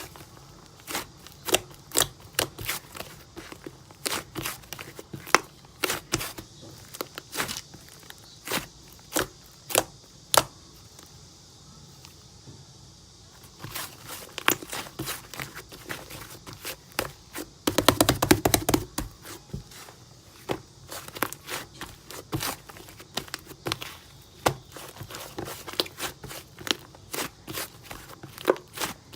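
Slime being pressed and squeezed by hand, giving sharp clicking pops at irregular intervals, with a fast run of crackling pops about 18 seconds in.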